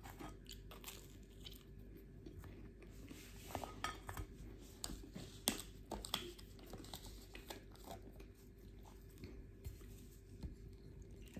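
A person eating a brioche close to the microphone: quiet chewing with irregular soft crackles from the flaky pastry, a few louder ones near the middle.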